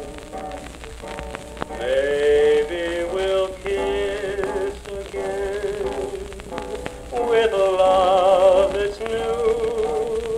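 Music playing back from a homemade home-recording disc on a turntable: a melody with wavering held notes, over steady crackle and scattered clicks of surface noise.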